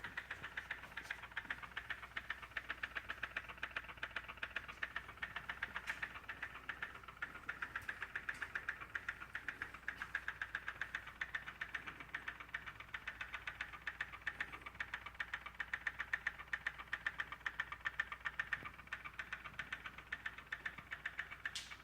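BMW M2 engine running with a steady, rapid ticking of about four or five ticks a second, a noise the owner links to the Valvetronic system.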